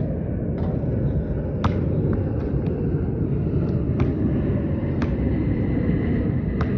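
Sharp, irregularly spaced knocks of a basketball bouncing, about eight in all, the strongest about a second and a half in, over a steady low rumble.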